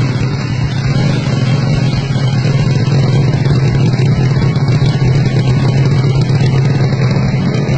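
A Honda C70 motorcycle with a two-cylinder engine, running and held at steady revs with an even, rapid firing pulse.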